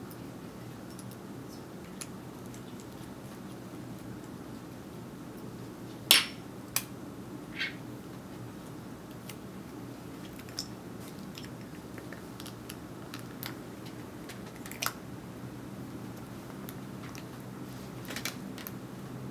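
Small metal tools clicking and tapping against the parts of an iPhone 5 being taken apart, over a steady low hum. There are scattered sharp ticks, the loudest about six seconds in.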